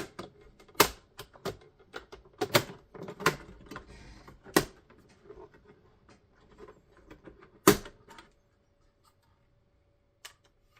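Plastic clips of an Xbox Series X's outer case snapping and clicking as the panel is prised open: a series of sharp, irregular clicks, the loudest just under a second in and about seven and a half seconds in.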